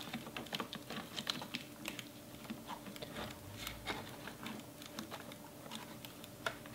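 Faint, irregular small clicks and ticks of cable connectors being worked loose and unplugged from a 2011 iMac's logic board.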